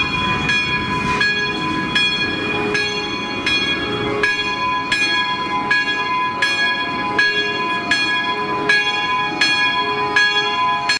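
Church bell tolling, struck evenly about every three-quarters of a second, each stroke ringing on into the next.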